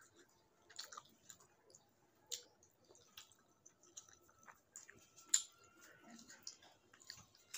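Fingers mixing rice with fish curry on a plate, with chewing: faint wet squishes and scattered sharp clicks, the sharpest about five seconds in.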